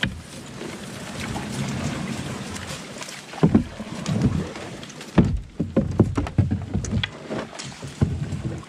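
A kayak paddled with a wooden paddle through a shallow, reed-lined channel: irregular paddle strokes in the water, with dry reeds scraping along the hull. A run of sharp knocks and splashes comes in the second half.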